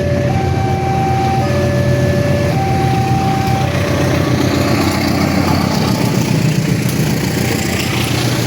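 Railway level-crossing alarm sounding two alternating tones, high and low, each about a second long, stopping about four seconds in. Under it, the steady low running of a heavy engine.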